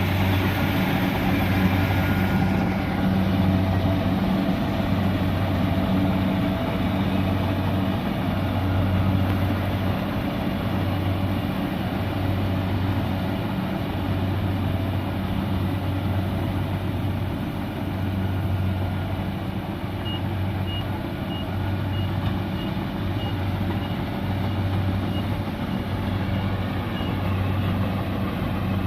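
Kubota combine harvester's engine running steadily under load. Its low hum swells and fades every second or two. About two-thirds of the way in comes a run of short, high, evenly spaced beeps, like a reversing alarm.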